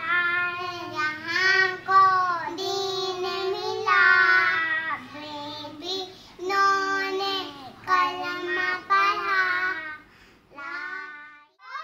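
Two young girls singing together without instruments, a sung prayer in drawn-out phrases with short breaks between them, pausing briefly near the end.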